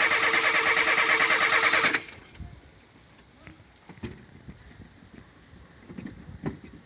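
Renault 9 Cheverny's starter motor cranking the engine in loud, even pulses for about two seconds, then stopping suddenly without the engine catching. The hard start follows a fuel filter change, with fuel not yet reaching the engine. Faint scattered knocks follow.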